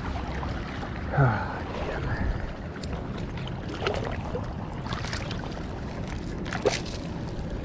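Cast net being hauled in through shallow river water by its hand line: water sloshing and dripping off the mesh over a steady low rush of wind on the microphone. A few short falling tones cut in, the loudest about a second in.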